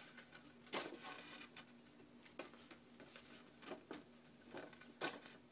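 Faint rustling and light ticks of paper pages being handled as needle and thread are drawn through the stitching holes of a paper mini book.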